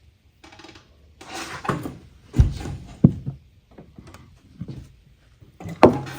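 A valve being lapped into its seat in a Ford 302 cylinder head with grinding compound: irregular bursts of gritty scraping, with a couple of sharp knocks around the middle. The change in this sound tells when the valve has seated.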